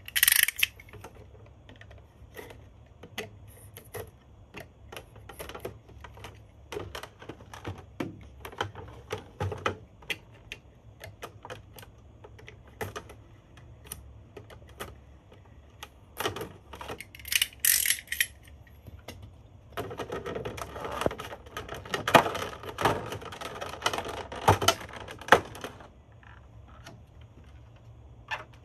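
Clear plastic blister packaging being handled and cut open with a utility knife: scattered clicks and taps of the stiff plastic, short scraping hisses of the blade, and a stretch of dense plastic crackling about two-thirds of the way through as the clear cover is worked off.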